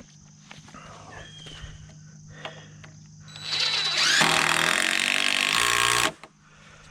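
A handheld electric power tool is triggered: its motor spins up with a rising whine, runs steadily for about two and a half seconds and stops abruptly. Before that there are a few light clicks and knocks.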